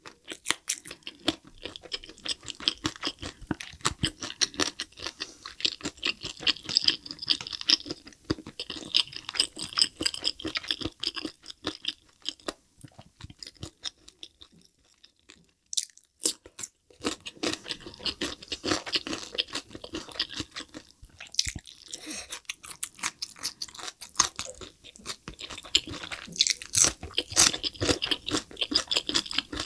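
Close-miked chewing and crunching of yangnyeom (sweet-spicy sauced) fried chicken as meat is bitten off a drumstick, a dense run of quick crackly mouth sounds. The chewing stops for a few seconds about halfway through, then resumes.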